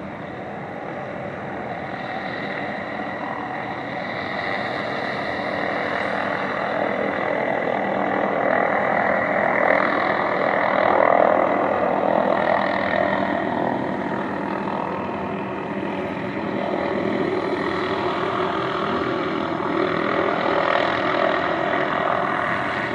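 Helicopter hovering overhead: a steady drone of rotor and turbine noise that swells a little around the middle and eases off again.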